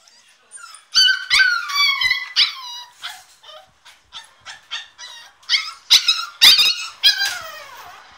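American Staffordshire terrier puppy screaming in long, high-pitched cries that fall in pitch, with shorter yelps in between and a few sharp knocks among them. It is crying to be let out of its crate.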